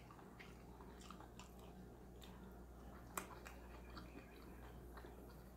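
Faint chewing: soft, scattered mouth clicks, one a little louder about three seconds in, over a low steady hum.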